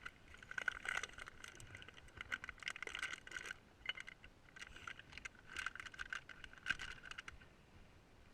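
Metal parts clinking and rattling in irregular bursts, each knock leaving the same short metallic ring, as tools and brake hardware are handled on an ATV's rear drum brake.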